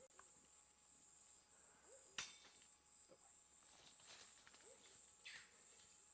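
Faint, steady high-pitched insect chorus, with one sharp click about two seconds in and a few faint short chirps.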